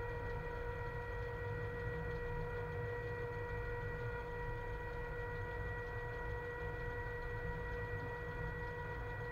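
Cab of a ČD Cargo class 130 electric locomotive under way with a heavy freight train: a steady, unchanging whine made of several pitched tones over a low rumble from the running locomotive.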